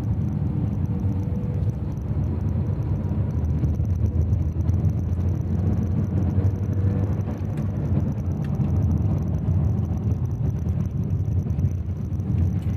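Maruti Suzuki Swift being driven on the road: a steady low rumble of engine and road noise.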